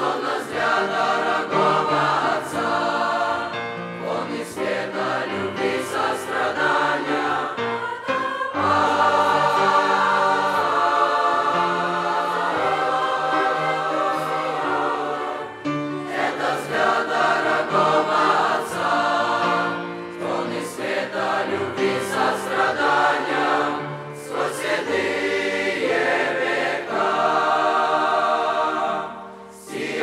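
Mixed teenage choir of boys and girls singing a Russian-language Christian song in parts, in long held phrases with brief pauses between them.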